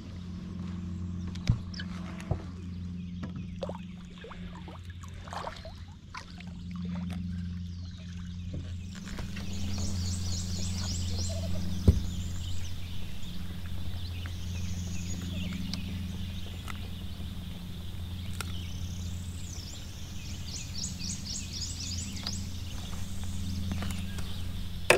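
Rapid trilling bird calls, repeated several times, over a steady low hum, with a few sharp knocks.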